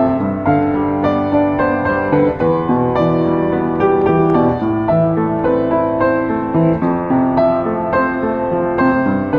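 Upright piano played with both hands: a flowing piece with several notes held and ringing together, new notes coming about twice a second.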